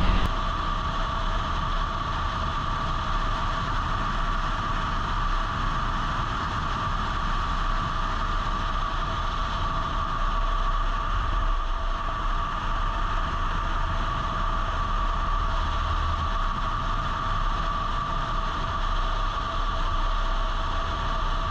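A vehicle running at a steady speed: a constant engine-and-road drone whose pitch does not rise or fall.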